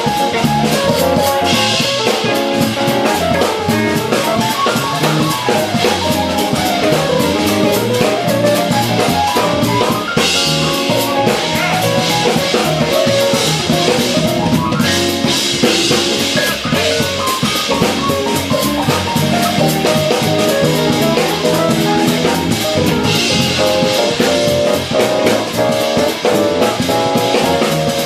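Live jazz-fusion band playing an instrumental: electric guitar and electric bass over a drum kit, with several cymbal crashes along the way.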